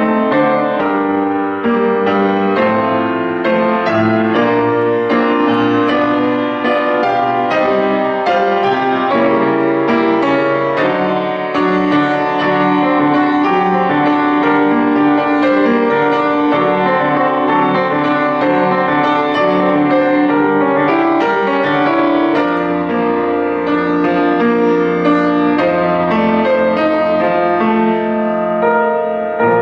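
Solo piano playing a piece from a children's piano suite, a steady flow of notes.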